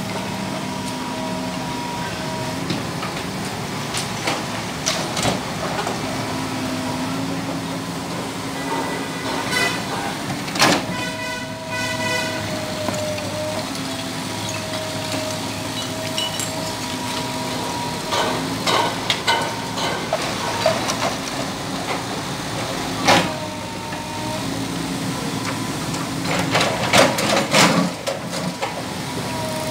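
Komatsu PC200LC hydraulic excavator running under load, its diesel engine and hydraulics giving a steady whine that drops out and returns as the machine works. Scattered knocks and clatter of rubble as the bucket digs into the pile and dumps into the truck, with sharp bangs about 11 s, 23 s and 27 s in.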